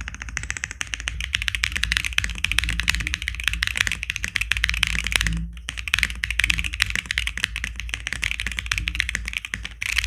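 Typing on a QK80 mechanical keyboard with factory-lubed Yalasuo linear switches, a polycarbonate plate, plate foam and PBT keycaps: a fast, dense run of keystrokes. There is a brief pause a little past halfway.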